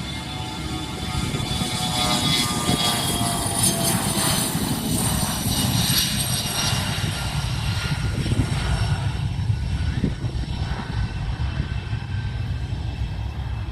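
Airliner passing close by: its engines' high whine slides down in pitch as it goes past, over a steady low rumble that builds in the first couple of seconds and then holds.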